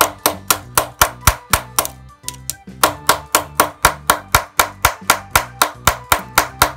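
Pliers used as a hammer, rapidly tapping the end of a flathead screwdriver to drive its tip into holes drilled beside a stripped hex socket bolt. The sharp, even taps come about four a second, with a short pause a little after two seconds in.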